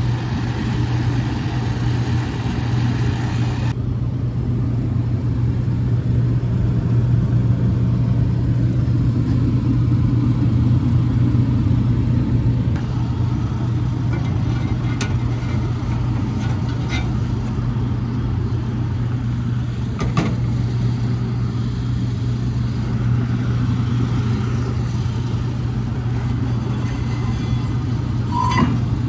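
Steady low hum of running machinery, with a few sharp clicks and knocks of tools, one about two-thirds of the way in and one near the end.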